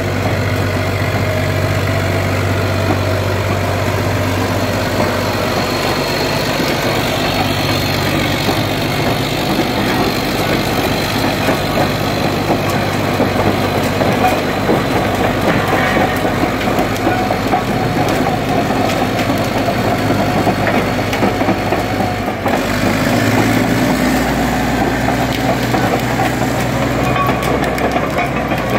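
Caterpillar D9H crawler dozer's diesel engine, a Caterpillar D353 turbocharged six-cylinder, running steadily at idle. About 22 seconds in the sound dips briefly and then carries on with a deeper low note.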